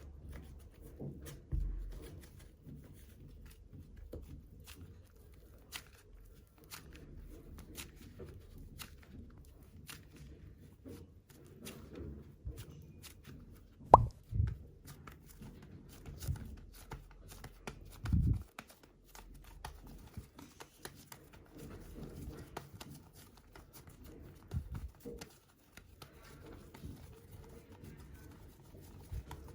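Soft super clay being worked by hand: quiet squishing and pulling with many small clicks, and a few soft thumps as it is pressed down, the loudest about halfway through and again a few seconds later.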